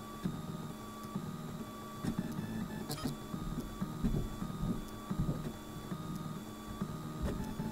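Printrbot Simple 3D printer running a print: its stepper motors hum at pitches that shift with each short back-and-forth move of the printhead, with a sharp click about three seconds in.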